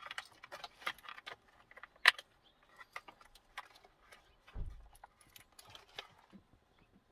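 Metal clicks and clinks of a steering wheel puller and its bolts being handled as the steering wheel is freed from the column, with one sharp clink about two seconds in and a dull thump about four and a half seconds in.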